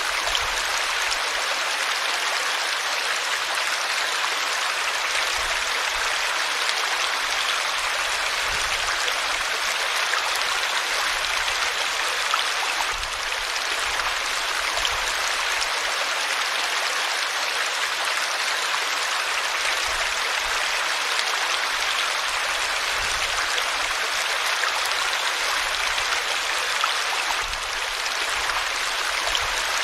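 River water flowing and splashing over rocks in a steady, even rush of white-water noise.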